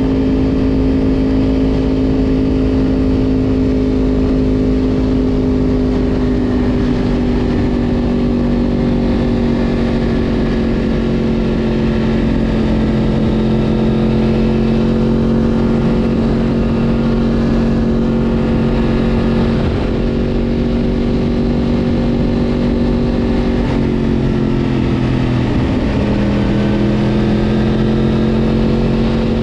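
Yamaha R1 inline-four engine running under way at steady cruising revs. Its pitch sags gently, then dips briefly and comes back up near the end.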